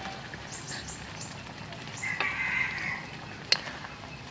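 A chicken clucking for about a second, starting about two seconds in, with a single sharp metal clink of a utensil against the plate or wok near the end.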